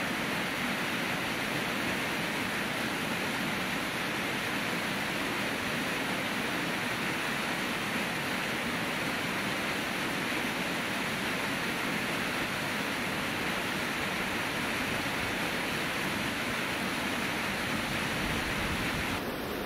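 Rushing alpine mountain torrent: fast water tumbling over a rocky bed in a steady, even rush. The sound shifts slightly near the end.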